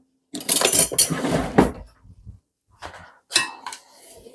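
Kitchen clatter: a drawer or cupboard and utensils handled with knocks and rattles as a spoon is fetched. A short burst of rattling comes first, then a few separate knocks.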